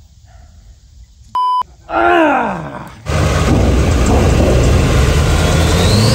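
A short censor bleep, then a falling, groan-like voice. About three seconds in, a sudden cut brings in Monstermax's engines running loud under load as the giant truck climbs over shipping containers, with a rising whine near the end.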